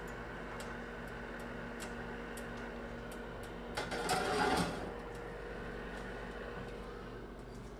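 A stainless steel pot scraping as it is slid onto the wire rack of a countertop electric oven, about four seconds in, over a steady hum with faint scattered clicks.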